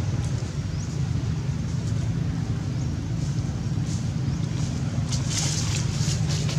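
A steady low rumble, with a few short crisp crackles about five seconds in, like dry leaves being stirred.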